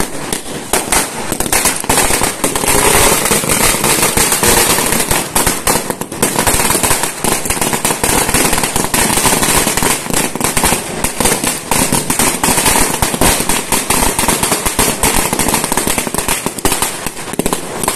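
A long string of firecrackers going off on the road: loud, rapid bangs, many a second, in an unbroken crackle.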